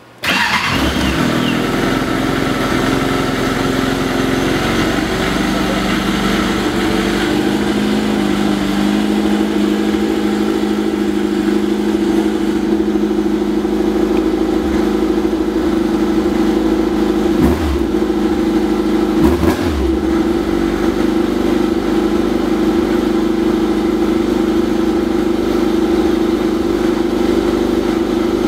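2006 Yamaha Apex GT snowmobile's four-stroke four-cylinder engine starting: it catches at once and settles into a steady idle, with two short louder moments about a second and a half apart past the middle.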